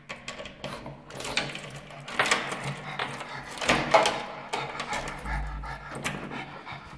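Keys jingling and a key being worked in the lock of a wooden door, with sharp clicks about two and four seconds in. A nervous pug at the door adds small sounds of its own.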